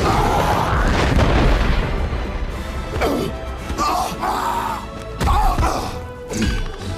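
Orchestral film score over battle sound effects: heavy low booms and crashes, a falling whoosh about three seconds in, then shrill pitched cries and two more impacts in the second half.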